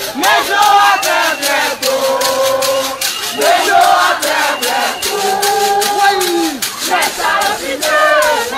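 A marching crowd chanting and singing together in long held lines, with a rapid beat of about four to five strikes a second underneath.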